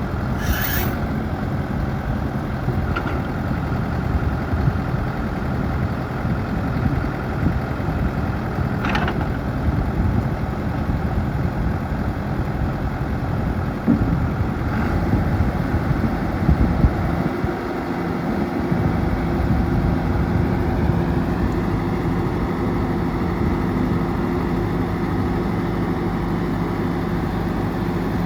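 New Holland LB110 backhoe loader's diesel engine running steadily, with a couple of brief high squeals, one near the start and one about nine seconds in. The engine note rises slightly and steadies about twenty seconds in.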